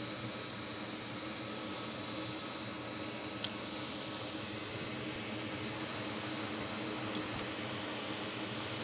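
Steady blowing hiss of bench air equipment with a faint low hum underneath, and one small tick about three and a half seconds in.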